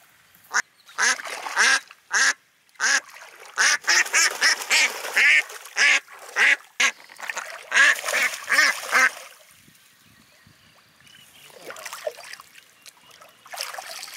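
Ducks quacking in a run of short, rapid calls for the first nine seconds or so, then only a few fainter sounds.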